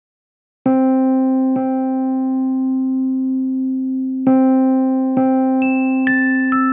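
Background music: slow electric piano notes, two struck about a second apart and held, then after a pause a run of single notes stepping down in pitch.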